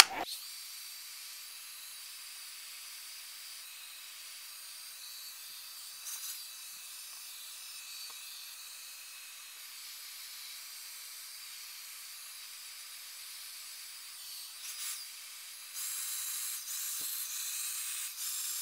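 Handheld hair dryer blowing steadily, drying a freshly airbrushed coat of acrylic paint on 3D-printed plastic parts. It gets louder near the end.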